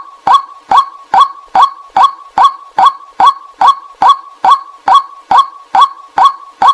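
White-breasted waterhen's call, one short 'kwak' note repeated at an even pace, about two to three times a second, as a lure recording played to draw waterhens in.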